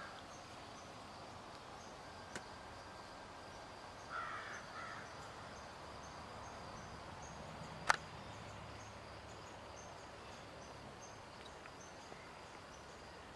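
Faint steady outdoor ambience, with a bird calling a few times in a short cluster about four seconds in and a single sharp click near eight seconds.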